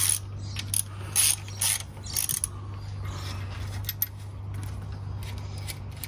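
Ratchet wrench clicking in short strokes as it turns bolts that draw the cylinder liners of a John Deere 2010 diesel down into the block. Four quick bursts come in the first couple of seconds, then a few lone clicks, over a steady low hum.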